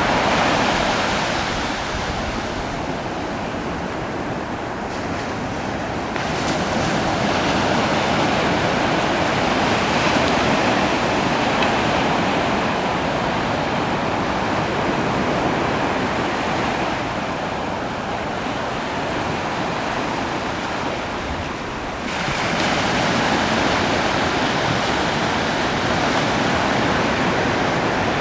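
Ocean surf breaking and washing up a beach in a steady rush, swelling louder as a new wave breaks about six seconds in and again about twenty-two seconds in.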